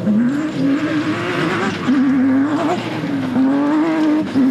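Off-road racing car's engine revving, its pitch climbing and dropping several times with throttle and gear changes, over the hiss of tyres on loose dirt.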